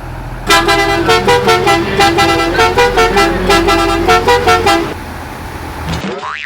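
Bus 'telolet' musical air horn playing a fast run of toots that switch between a few pitches, over a steady low engine hum. The tooting stops before the end, and a short rising springy tone follows.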